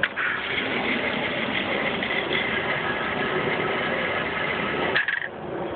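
A motor running steadily with a faint high whine for about five seconds, with a short sharp sound near the end.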